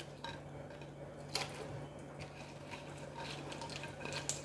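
Faint, sparse clicks of a steel slotted skimmer tapping the metal frying pan as cauliflower pieces are lowered into the oil, over a steady low hum.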